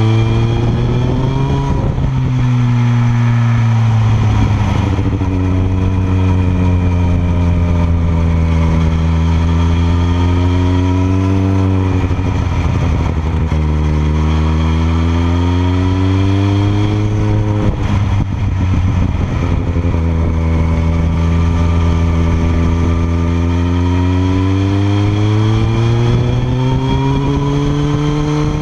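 Kawasaki ZX-14R's inline-four through a Yoshimura R77 exhaust, heard close to the silencer while riding. The exhaust note falls and rises again and again as the throttle is rolled off and opened through the bends, with a few short rough breaks and a long climbing pull near the end.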